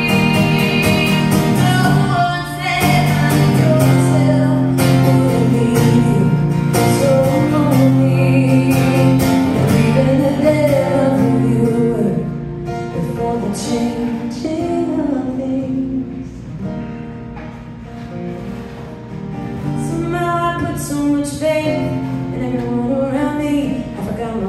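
A woman singing live to her own strummed acoustic guitar. The playing thins out and grows quieter around the middle, then builds again.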